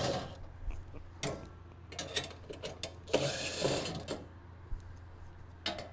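Cordless drill/driver loosening a screw in a sheet-metal panel: scattered clicks and metal knocks, with a short run of the driver about three seconds in.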